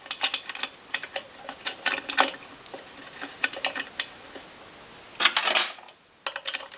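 Cast metal clutch cover being worked by hand onto a Puch Maxi moped engine's crankcase: a string of light metallic clicks, taps and scrapes, with a louder scraping rustle about five seconds in. More clicks follow near the end as a screwdriver starts a cover screw.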